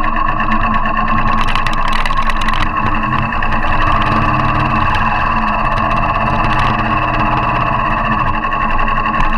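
Motorcycle engine running steadily as the bike rides a rough, rocky track and through a shallow stream. A cluster of sharp clicks comes between about one and a half and two and a half seconds in.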